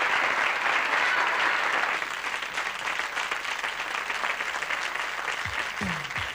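Studio audience applauding after a song. The clapping eases off after about two seconds, and near the end a drum beat of low, falling-pitch thuds comes in.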